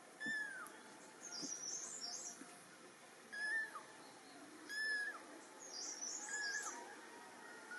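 Young kittens meowing for their mother: four short, high-pitched calls, each held briefly and then dropping in pitch, with faint higher chirping between them.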